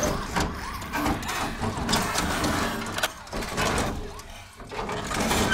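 Hard plastic toy car knocking and clattering as it is tipped over and tumbled onto its side, several separate knocks, with a toy siren warbling faintly in the first second.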